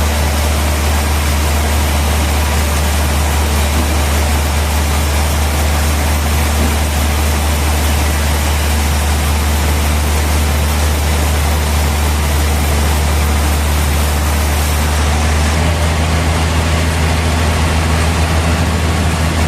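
Sawmill machinery running steadily, a strong low hum under a constant hiss. About 15 seconds in the high hiss drops away and the hum shifts slightly.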